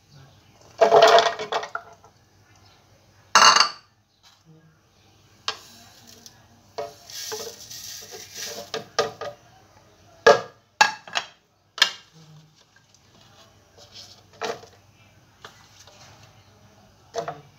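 Kitchen handling sounds as ingredients go into a plastic mixer-grinder jar: separate clattering knocks and sharp clinks of dishes and utensils, with a longer scraping, pouring stretch partway through as a bowl is emptied into the jar.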